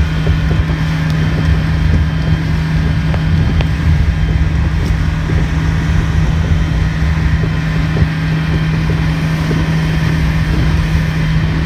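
Boat engine running steadily under way, a constant low drone, with wind buffeting the microphone.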